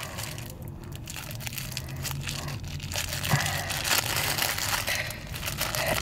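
Crinkling and crackling of a small clear plastic bag being opened and handled by hand.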